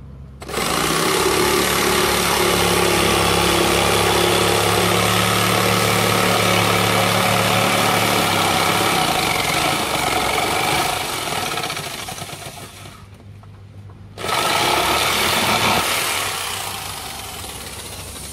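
Skil 400 W electric jigsaw cutting across a wooden board. It runs for about twelve seconds, stops for about a second, then cuts again briefly and fades near the end as the board is cut through.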